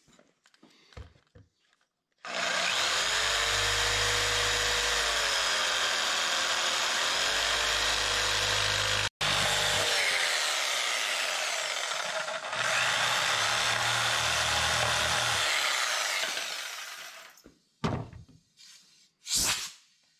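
Corded jigsaw cutting a curve through plywood. It starts about two seconds in and runs for about fifteen seconds, its motor pitch sagging and recovering as the blade loads up in the cut. A couple of short knocks follow near the end.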